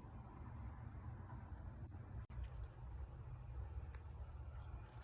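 Crickets chirping in a steady high-pitched chorus, over a low rumble.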